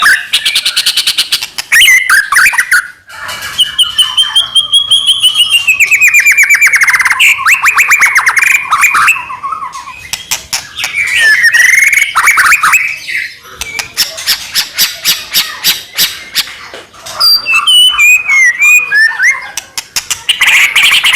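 White-rumped shama (murai batu) singing hard: a loud, varied song of fast rattling runs of repeated notes, gliding whistles and harsh squawky notes, with short breaks about three and thirteen seconds in.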